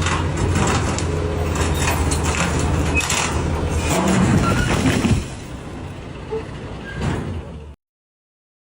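A steady low engine-like drone with clattering and knocks. It drops away about five seconds in and cuts off abruptly near the end.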